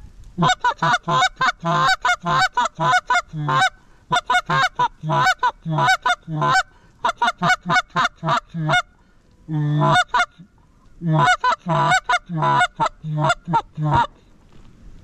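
Canada goose call blown hard in fast runs of short honks and clucks, each note breaking from a low honk up to a higher crack, with brief pauses about four and nine seconds in. It is calling to flocks of migrating Canada geese passing overhead.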